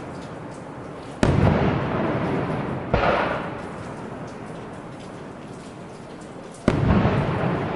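Firework shells bursting: three sharp bangs, about a second in, about three seconds in and near the end, each followed by a rolling rumble that dies away.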